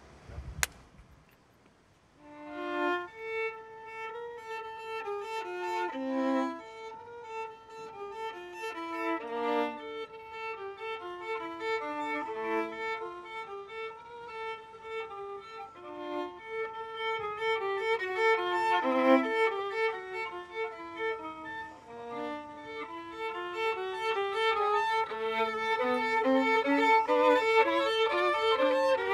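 A single sharp clack, the film slate's clapperboard, less than a second in. Then a solo violin is played live: a bowed melody of separate notes that starts about two seconds in and grows louder toward the end.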